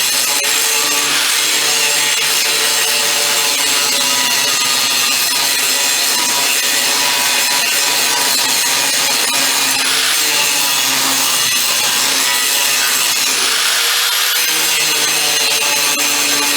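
Angle grinder grinding down a fresh weld on a steel bed latch tab, with a steady grinding hiss and motor whine. The pitch dips briefly under load near the end, then recovers.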